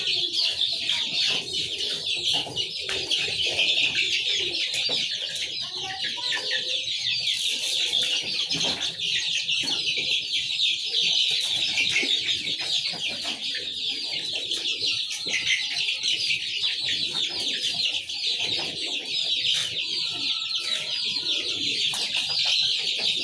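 A flock of two-month-old desi chicks cheeping constantly in a high pitch, many voices overlapping, with some clucking.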